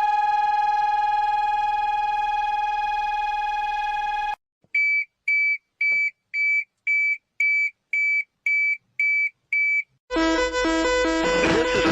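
A steady, horn-like alarm tone holds one pitch and cuts off suddenly about four seconds in. After a short gap come ten short high beeps, about two a second. Music starts about ten seconds in.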